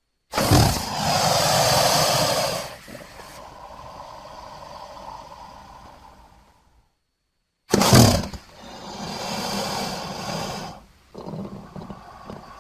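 Crocodile growls in two loud bouts, each starting abruptly and tailing off into a lower, rough rumble, with a brief silence between them.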